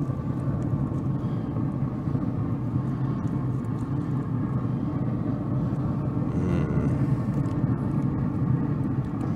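Moesta Sheriff pellet smoker running with its lid open: a steady low hum and rumble, with faint steady tones above it.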